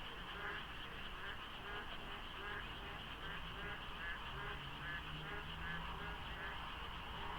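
A dense chorus of frogs, many overlapping croaks repeating about two or three times a second over a steady high hiss of more callers. A low hum runs underneath.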